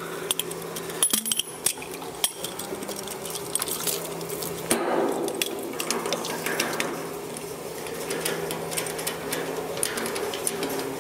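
Stainless steel valve fitting at the bottom outlet of a collection tank being handled and connected: repeated sharp metallic clicks and clinks, over a steady hum.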